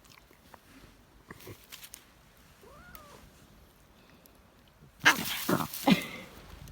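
Domestic cat meows faintly about three seconds in, then gives a much louder, rougher cry with falling pitch near the end.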